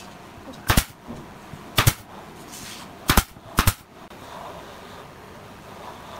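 Nail gun firing four times into a pine board, each a sharp snapping shot, the last two about half a second apart.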